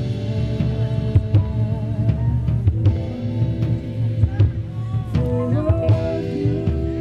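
Live band playing a song, with a drum kit, guitars and keyboard.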